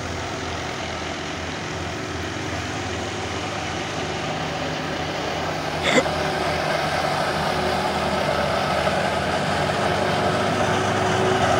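Tractor engine and wheat thresher running steadily during threshing. The noise grows gradually louder, with one sharp click about six seconds in.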